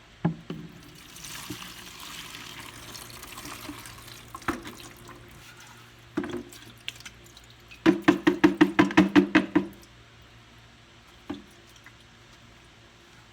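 Old gasoline poured out of a small lawnmower gas tank into a container: a stretch of pouring, then knocks of the tank and a quick run of about a dozen knocks as it is shaken out.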